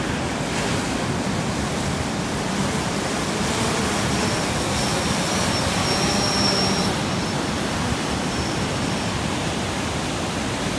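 Surf breaking with a steady rush of noise. From about four seconds in, a faint high whine of a DJI Phantom 4 quadcopter's propellers joins it as the drone hovers low to be caught by hand, and it stops about nine seconds in.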